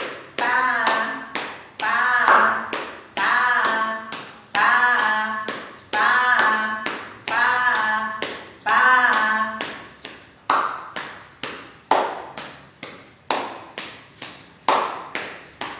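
Steady hand taps, about two a second, for a body-percussion coordination exercise. A woman's voice chants long, held syllables over the taps for the first nine seconds or so, then the taps go on with only a few short vocal sounds.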